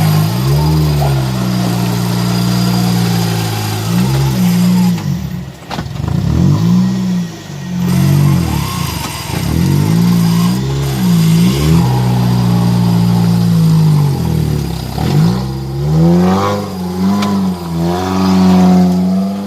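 Off-road vehicle's engine revving hard, its pitch climbing and dropping back again and again every second or two.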